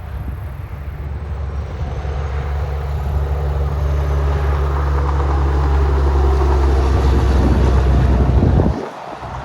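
Diesel semi truck engine running at a steady pitch and growing louder as it approaches, cutting off suddenly near the end.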